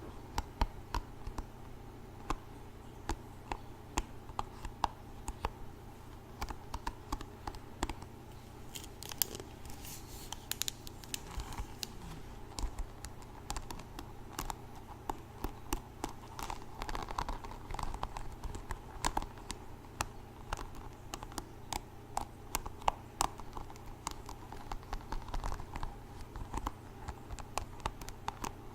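Hairbrush bristles scratched and tapped close to the microphone, a steady run of small irregular clicks and scratchy rustles.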